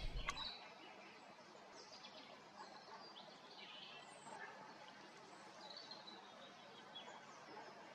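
Faint birdsong: short, scattered chirps and calls over a quiet background hiss.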